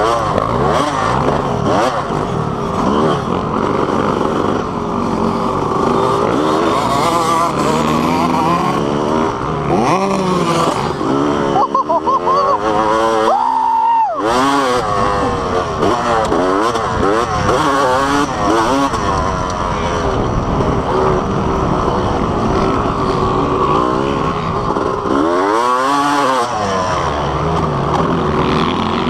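Dirt bike engine heard from on the bike, revving up and down with the throttle as it is ridden round a motocross track. About halfway through and again near the end the engine drops off and then revs back up.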